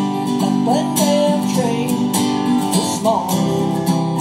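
Background music: strummed acoustic guitar keeping a steady rhythm, with a lead melody above it that slides between notes.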